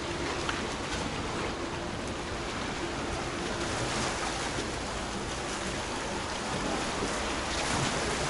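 Sea waves and wind, a steady rushing noise.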